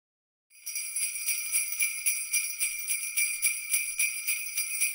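Jingle bells shaken in a steady, rapid rhythm, starting about half a second in.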